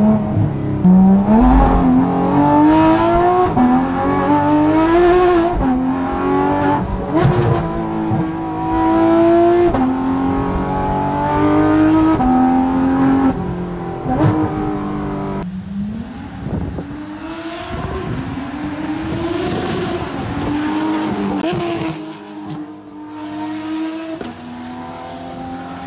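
Porsche GT3 RS flat-six with a Dundon Motorsport Inconel exhaust, heard from inside the cabin while accelerating hard. The engine note climbs in pitch and drops sharply at each upshift, several times over. About two-thirds of the way through it cuts abruptly to a quieter, rougher engine sound.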